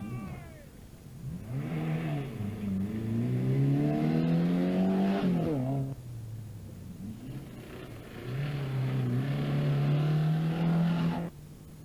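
Rally car engine at high revs under hard acceleration, its pitch climbing before falling away. A second spell of high revs follows, rising slowly and cutting off suddenly near the end.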